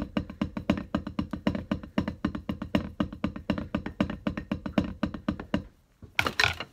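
Drums played in fast, even strokes, about eight or nine a second, stopping shortly before the end, followed by one brief, sharp noisy burst.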